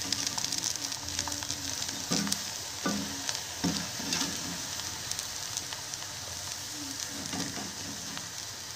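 Raw banana and potato slices deep-frying in foaming sesame oil in a clay pot, a steady crackling sizzle. A perforated metal ladle stirs them, knocking and scraping against the pot a few times about two to four seconds in.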